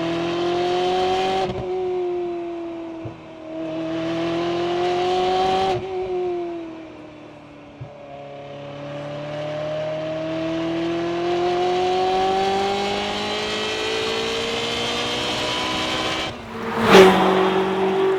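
Ferrari 360's 3.6-litre V8 running under way: its pitch climbs, eases off and falls back three times, then holds steady. A short, sharp burst of noise near the end is the loudest moment.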